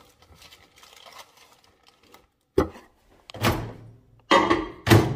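Kitchen handling clatter while a cinnamon bun is loaded into a microwave: faint small clicks, then four sharp clunks and knocks in the second half, such as a plate being set down and the microwave door being worked.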